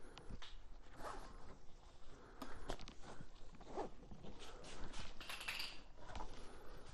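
Nylon webbing straps of a handlebar roll being handled, pulled through their buckles and cinched tight: scattered clicks and knocks with short rasps, the longest about five seconds in.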